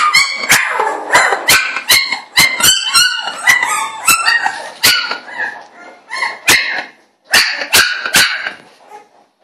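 A dog barking sharply again and again, about fifteen loud barks in quick succession with a brief pause about two-thirds of the way through.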